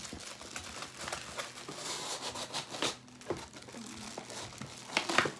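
Clear plastic packaging crinkling and rustling as a wrapped piece is pulled out of a cardboard shipping box, with a few louder, sharp crackles near the end.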